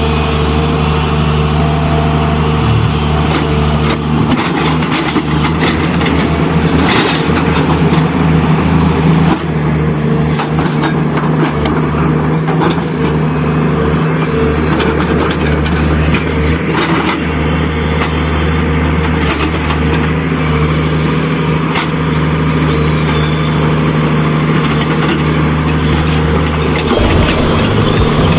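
Small electric motors and gearboxes of radio-controlled model construction machines running steadily with a whine, with scattered clicks and knocks. The motor sound changes near the end.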